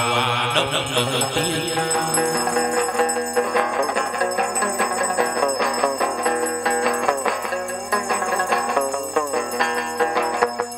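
Hát văn (chầu văn) ritual music played without singing: a plucked string melody over a rapid percussion beat.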